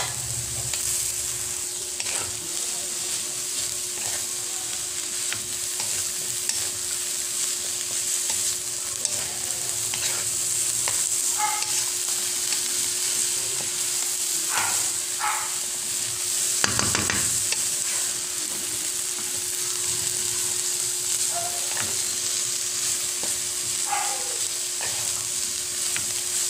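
Vegetables and tofu sizzling in a pan as they are stirred, with the spatula clicking and scraping against the pan now and then and a louder scrape about 17 seconds in. A steady hum runs underneath.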